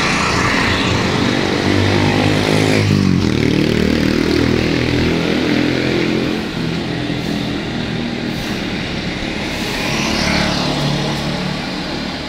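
Street traffic: small engines of passing vehicles, one passing close about three seconds in with its engine pitch sweeping as it goes by, and another swelling up near ten seconds.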